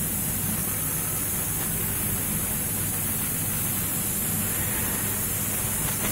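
CNC plasma cutter cutting sheet metal: a steady, even hiss from the cutting torch, over a low machine hum.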